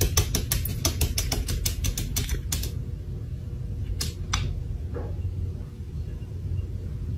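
A cat pawing at a glass door, its claws tapping rapidly on the glass at about six taps a second. The tapping stops a little under three seconds in, and a few single taps follow later, over a steady low rumble.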